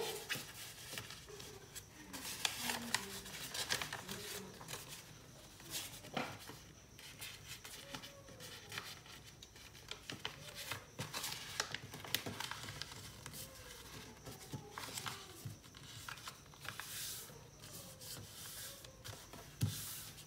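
Sheet of paper being folded and creased by hand: irregular rustling and crinkling, with sharp brushing strokes as the folds are pressed flat.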